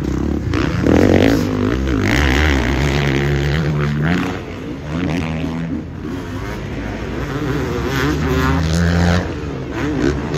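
Motocross bike engines running hard on the track, their pitch climbing and dropping over and over as the riders work the throttle through the turns and jumps.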